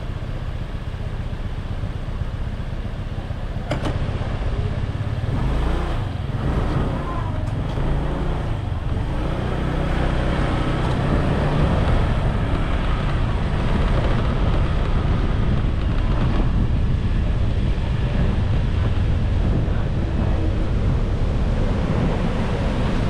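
Wind buffeting the microphone of a camera on a moving bike: a steady low rumble with road noise, growing a little louder about five seconds in.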